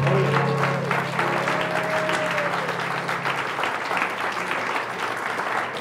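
Audience applauding, with a held chord from the live band ringing under the clapping and dying away about three and a half seconds in.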